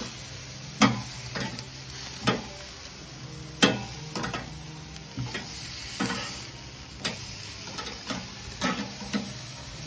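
Metal tongs clicking and scraping against a wire grill grate as chicken wings are turned, about a dozen sharp clicks at irregular intervals. Underneath is the steady sizzle of the wings grilling over charcoal.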